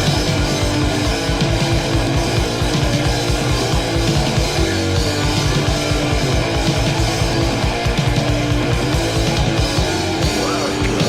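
Heavy metal band playing a loud instrumental passage: distorted electric guitar and bass over fast, steady drumming.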